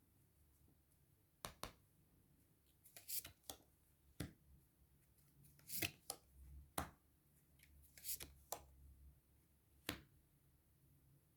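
Tarot cards being handled and laid down on a table: a scattered series of light taps and flicks, some in quick pairs.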